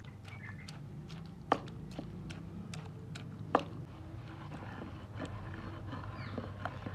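Wooden pestle pounding watermelon flesh in a stone mortar: wet thuds and clicks, with two sharp knocks about two seconds apart. Then wet squelching as a hand squeezes and mixes the mashed pulp.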